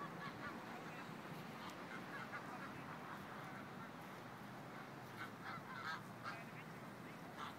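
A flock of white domestic geese honking repeatedly as they are driven along, with the calls crowding together about five to six seconds in, over a steady background rush.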